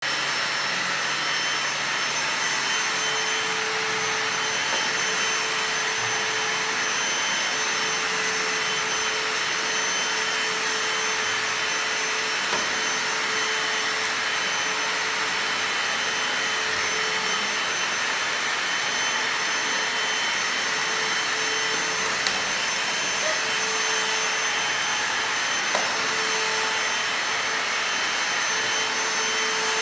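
Stick vacuum cleaner running steadily, a constant whine over its rushing air noise, with a few faint light knocks as the head is moved about.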